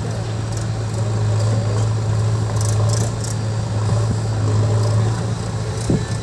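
Engine of a tractor or JCB-type machine running steadily, with a constant low drone.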